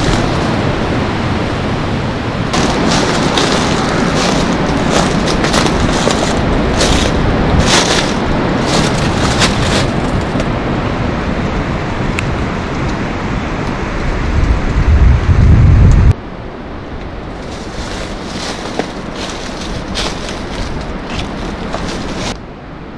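Waterfall's rushing water, a loud steady roar, with wind buffeting the microphone. The sound drops abruptly to a quieter roar about 16 seconds in, and again just before the end.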